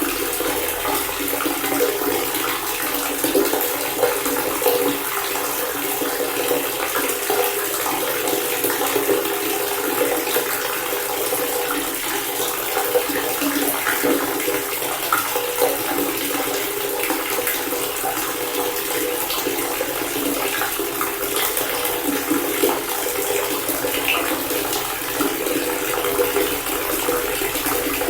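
Water pouring steadily from a faucet fountain, a continuous even rush of running water without breaks.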